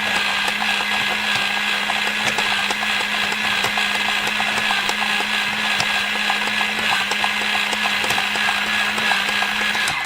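Electric blender running at a steady speed, grinding. Its motor hums at one constant pitch under a dense crackle of small clicks.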